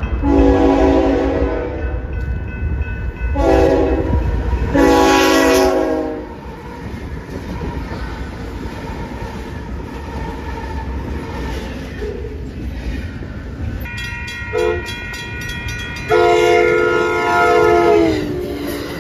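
Train's multi-note air horn sounding three blasts, the first the longest, then one more long blast near the end that sags in pitch as it stops. A steady low rumble of the moving train runs underneath, with a stretch of regular wheel clicking shortly before the last blast.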